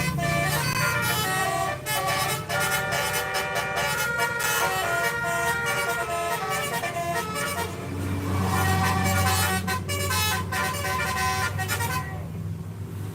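Bus 'telolet' multi-tone horn playing a melody of quickly changing notes over the low rumble of the bus engine. The engine grows louder about eight seconds in, and the horn stops about twelve seconds in.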